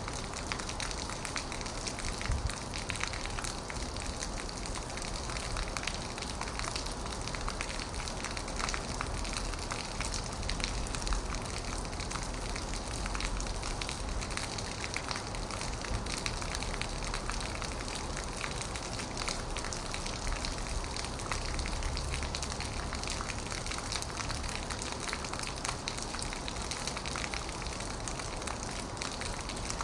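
Heavy rain falling on an old metal roof: a dense, steady hiss of countless drop impacts, with a low wind rumble underneath that swells at times.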